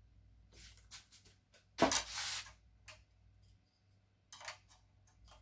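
Handling noises from small plastic RC-truck parts being fitted by hand: scattered clicks and taps, with a sharp knock about two seconds in followed by a short scraping rustle.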